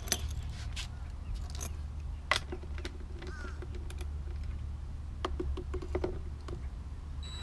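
Scattered metal clicks and knocks as a cordless drill-driver is fitted to the lid bolts of a Lectrasan marine toilet unit and the bolts and nuts are handled, over a steady low hum. The loudest is a sharp click about two seconds in.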